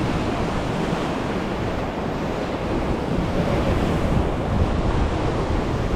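Steady wind noise on the microphone over breaking surf.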